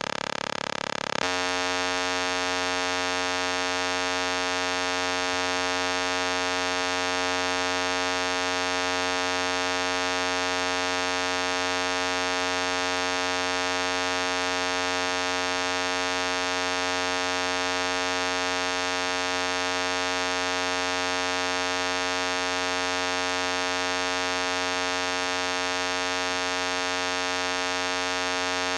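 A loud, steady electronic buzzing tone with many overtones. It changes to a different tone about a second in and then holds unchanged.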